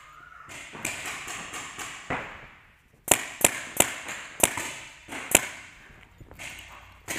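Paintball marker firing, five sharp shots in quick succession over about two seconds, loud and close. Fainter pops from other markers sound across the arena before them.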